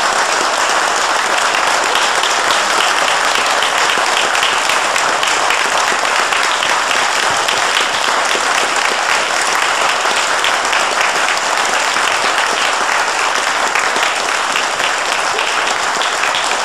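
Audience applauding: dense, steady clapping with no letup.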